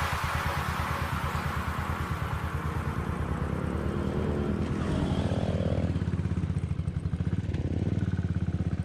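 Motorcycle engine running, its exhaust pulses steady throughout, with only slight swells in level.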